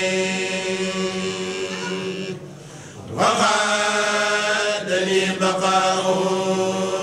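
Voices chanting an Arabic devotional poem, a Mouride khassida, on long held notes. The chant breaks off briefly about two and a half seconds in and comes back on a rising note.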